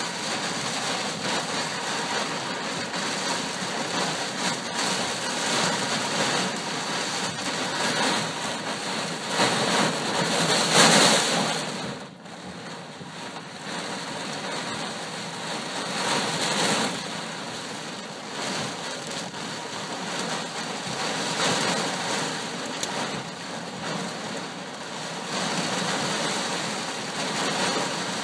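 Heavy rain and wind of a severe thunderstorm, a steady rush that swells to its loudest about ten seconds in, then drops off sharply.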